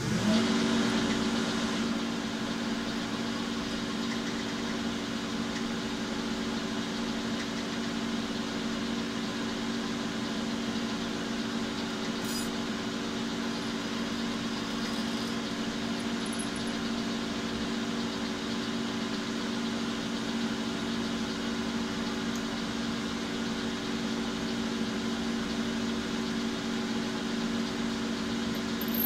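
Metalworking lathe switched on at the start and then running steadily, its motor and drive giving an even hum with a couple of held tones, while a twist drill in the tailstock chuck bores into the spinning bar stock.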